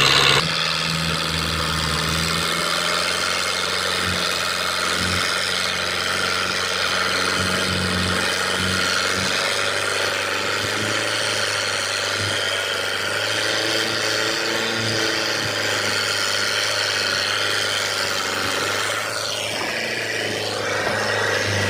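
Small fishing boat's engine running steadily at low speed. Its note steps down about half a second in, then holds steady.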